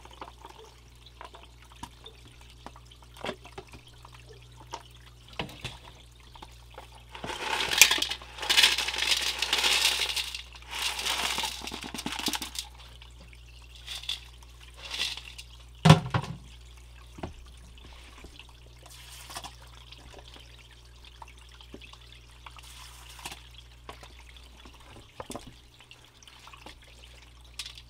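Water splashing and trickling as gold paydirt is washed, with small clicks of gravel and stones. A loud stretch of pouring and splashing starts about seven seconds in and lasts about five seconds, and there is a single sharp thump about sixteen seconds in, all over a steady low hum.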